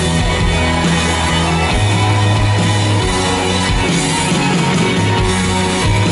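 Live rock band playing loudly on stage, with electric guitar over held bass notes, heard from within the crowd.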